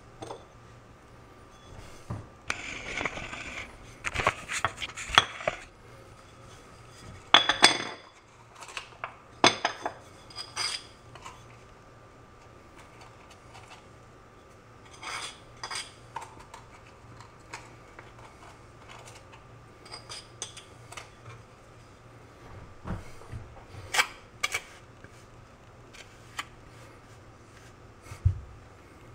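Scattered metal clinks and scrapes from tile-setting hand tools, a margin trowel working white tile adhesive, busiest in the first ten seconds and sparser after.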